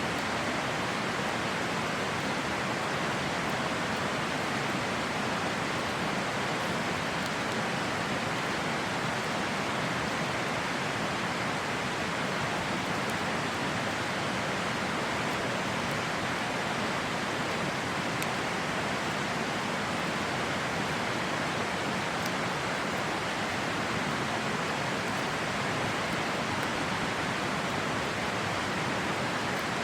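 River water rushing steadily, with a few faint crackles from a wood campfire.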